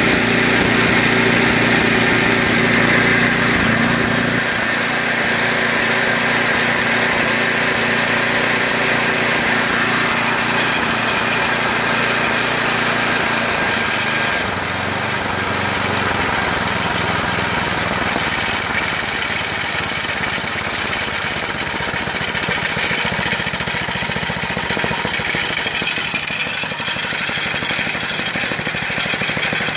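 Snowblower's small gas engine running steadily at about 3500 rpm, its tone shifting slightly about four seconds in and again around fourteen seconds.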